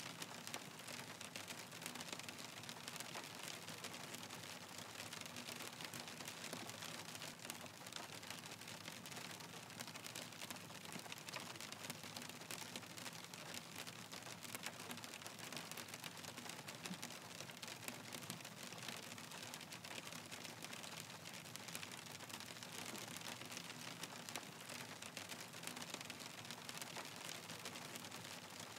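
Hailstorm: hailstones falling in a dense, steady stream of tiny clicks and taps, with no let-up.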